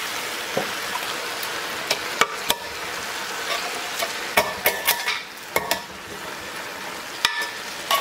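Meat frying in a pot with a steady sizzle while a spoon stirs it. The spoon knocks and clinks sharply against the pot about eight times, most of them in the middle.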